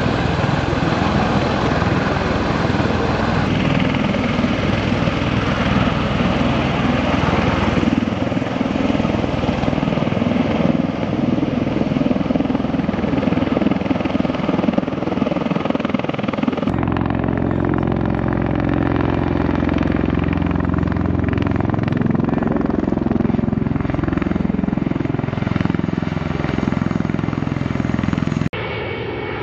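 MV-22B Osprey tiltrotor flying low with its proprotors tilted up, a loud, steady beat of rotor blades over turboshaft engine noise. About two-thirds of the way in the sound changes abruptly and the rotor pitch slides downward as the aircraft passes and moves away; the sound drops off suddenly near the end.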